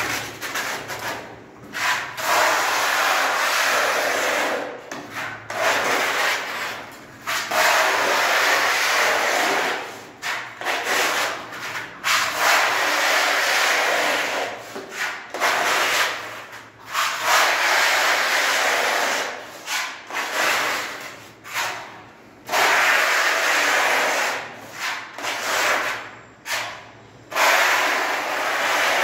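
Hand-held putty blade scraping as it spreads wall putty over a rough cement-plastered wall, in repeated strokes of one to three seconds each with short breaks between.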